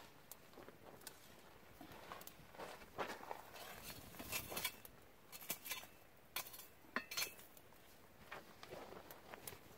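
Wood campfire crackling, with sharp, irregular pops and snaps.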